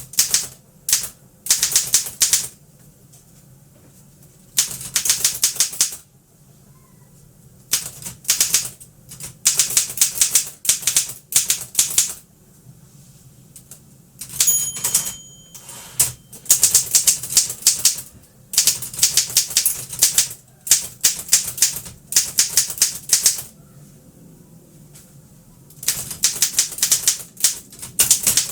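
1936 Seidel & Naumann Ideal office typewriter being typed on: runs of rapid key strikes in bursts of a second or two, with short pauses between them. About halfway through, the margin bell rings once.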